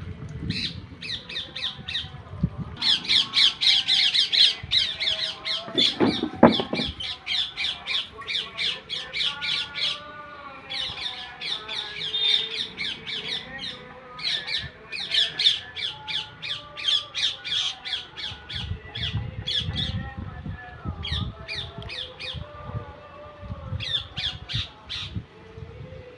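Parrot squawking in fast runs of short repeated calls, about six a second, in several bursts separated by brief pauses. There is a louder low thud about six seconds in.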